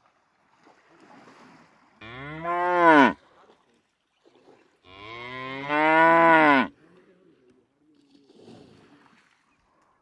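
Water buffalo mooing twice: two long, loud calls that each rise and then fall in pitch, the second longer than the first.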